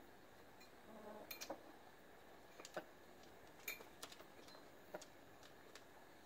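Near silence broken by scattered, faint, sharp clicks and taps as two hens shift their feet on a plastic milk crate.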